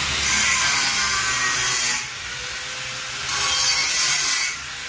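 Electric cutting grinder (angle grinder) running with a steady motor whine, its disc cutting into material under load twice: a loud grinding hiss for nearly two seconds, a pause, then again for just over a second.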